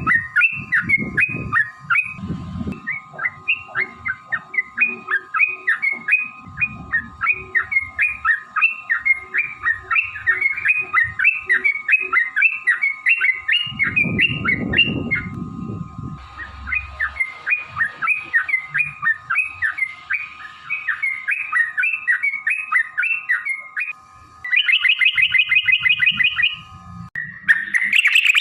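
Yellow-vented bulbul (trucukan) song: a long rapid run of repeated chattering notes, about three to four a second, with a short break midway. Near the end it speeds up into a fast dense trill, followed by a harsher, noisier burst.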